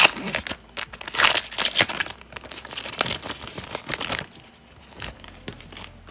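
Foil wrapper of an Upper Deck hockey card pack being torn open and crinkled: a sharp rip at the start, then bursts of crinkling through the first four seconds. After that come quieter taps as the cards are handled.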